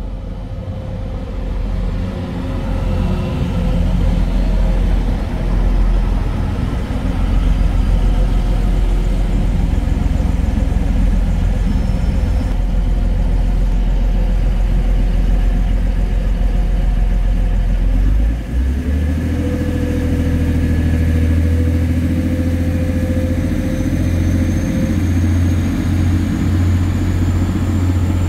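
Diesel train engine running steadily with a heavy low rumble. A little after two-thirds of the way through it dips for a moment, then settles into a different, steady drone with a faint rising whine.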